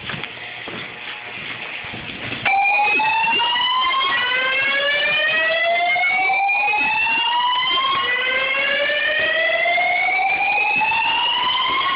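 Fire alarm sounding during a test: it comes on suddenly about two and a half seconds in and plays a slow rising whoop. Each sweep climbs for about five seconds before starting again, with several overlapping copies of the tone.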